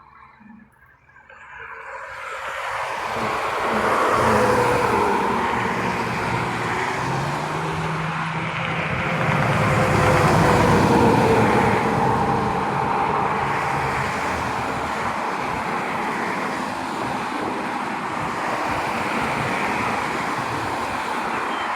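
Motor vehicle traffic: engine and road noise swelling in about two seconds in, loudest a few seconds later and again about halfway through, then running on steadily.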